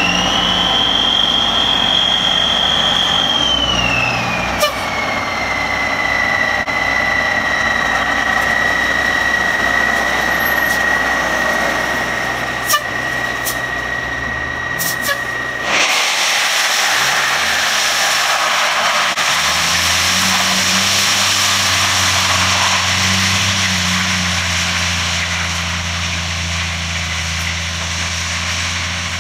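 Dump truck spreading gravel, its engine running with a steady high whine that drops in pitch a few seconds in and cuts off abruptly about halfway. After that, a lower engine rumble with rushing noise.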